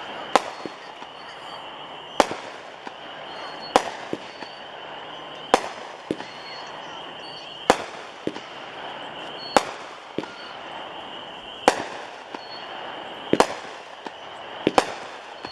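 Cutting Edge 'Absolute Evil' 16-shot 200-gram repeater cake firing its shots one at a time, roughly one every two seconds. Each sharp bang is followed a fraction of a second later by a fainter pop.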